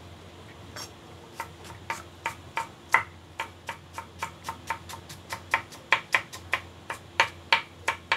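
Kitchen knife chopping shallots and garlic on a round wooden chopping board: a steady run of sharp knocks, about three or four a second, starting about a second in, some strokes louder than others.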